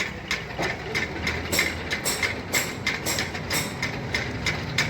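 Mini milling machine running, its belt-driven AC motor humming steadily while the HSS milling cutter cuts into a workpiece. The cut makes regular sharp ticks about three times a second.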